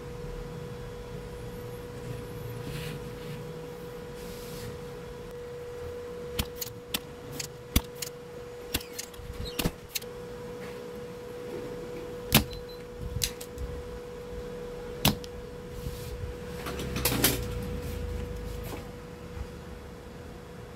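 Sharp clicks and taps from small tools and a circuit board being handled on a workbench, about a dozen scattered through the middle with a short rustle near the end, over a steady hum.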